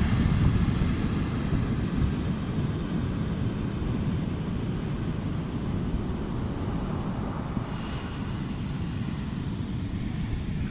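Wind noise on the microphone, a steady low rumble, over the hiss of surf washing up on the sand.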